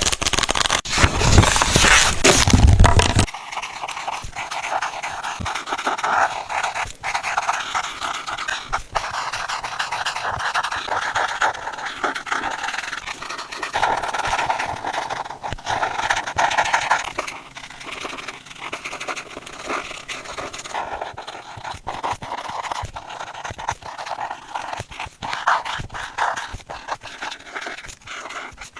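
A coloring pen or pencil scratching and rubbing on paper in quick, continuous strokes, with small ticks as the tip is lifted and set down. For the first three seconds a louder, fuller rubbing noise sits over it.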